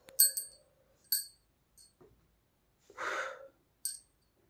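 Light metallic clinks with a short ring, several in the first second and one more near the end, and about three seconds in a short breathy exhale.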